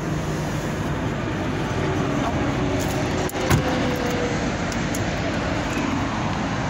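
Steady rumble of vehicle and traffic noise, with a single sharp thump about three and a half seconds in.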